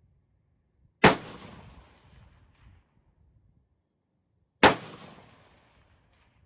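Two shots from a Troy P7A1 AR-15 pistol in 5.56 with a 7.5-inch barrel, about three and a half seconds apart, each a sharp crack followed by a rolling echo that dies away over a second or so.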